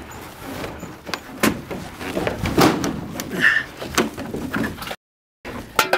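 Irregular knocks, clanks and scrapes of an old aluminium airplane fuselage as a man grips and pulls at the edge of a hatch opening, trying to climb in. The sound cuts out briefly near the end.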